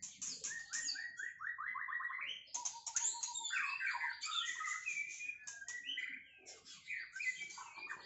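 White-rumped shama (murai batu) singing a varied run of whistled phrases, with a quick string of repeated upswept notes about a second in.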